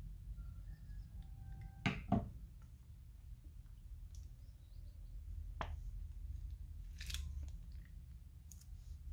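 Two sharp scissor clicks about two seconds in, then a few soft clicks and crinkles from a plastic piping bag as slime is squeezed out of it. A low steady hum underneath.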